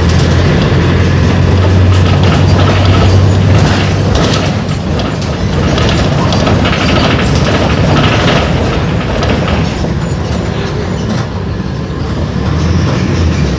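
Mercedes-Benz OF-1418 bus's six-cylinder diesel engine running under way, with the body rattling and clattering throughout. The engine note is strong for the first few seconds, eases about four seconds in, and picks up again near the end.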